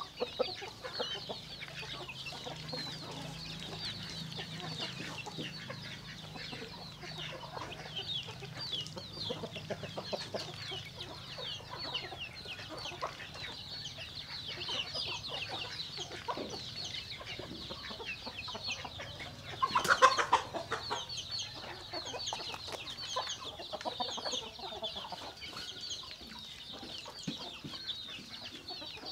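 A flock of chickens clucking and peeping steadily with many short, high calls, and a brief louder burst about twenty seconds in.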